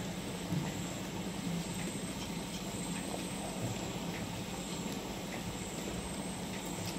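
Ginger juice and sugar syrup boiling hard in a steel pan: a steady bubbling hiss with a faint low hum.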